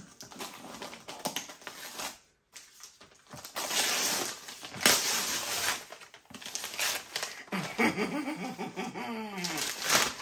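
Cardboard gift box and its paper wrapping being pulled and torn open, crackling and rustling, with a sharp tearing snap about five seconds in. Near the end a woman makes wordless voiced sounds.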